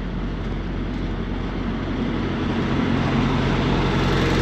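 Large diesel engine idling steadily, growing gradually louder.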